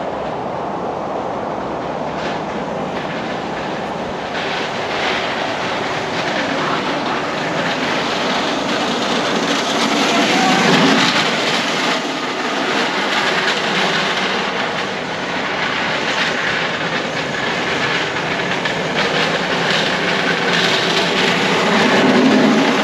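Small hard wheels of an electric XL Crazy Cart rolling and sliding on rough asphalt as it is driven and drifted: a continuous gritty rolling noise that swells about halfway through and again near the end.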